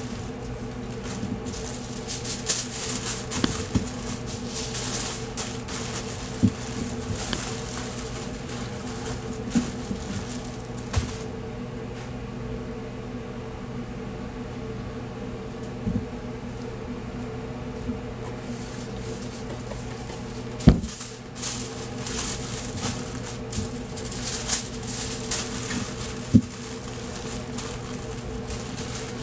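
Aluminium foil crinkling and rustling in handfuls as meat is wrapped, over a steady hum of commercial kitchen equipment. The crinkling pauses for several seconds mid-way, and a single sharp knock comes about two-thirds of the way through.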